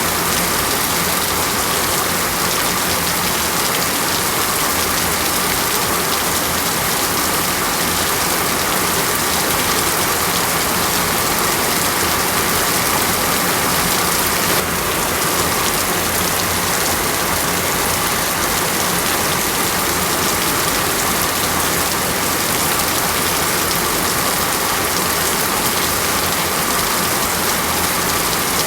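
Heavy rain falling steadily on rainforest foliage, a constant even hiss of drops.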